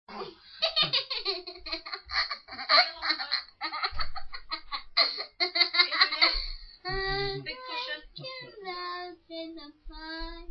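A young girl laughing hard in quick bursts, then vocalising in held, high sing-song notes from about seven seconds in.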